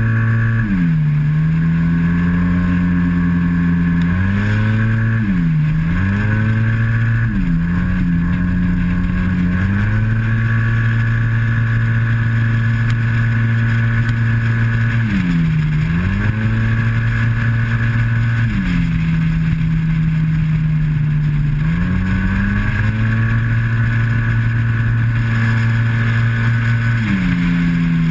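Yamaha TMAX maxi-scooter's parallel-twin engine running hard at track speed. Its automatic transmission holds the engine at a steady high pitch along the straights, and the pitch dips briefly and climbs back several times as the rider eases off for corners and gets back on the throttle.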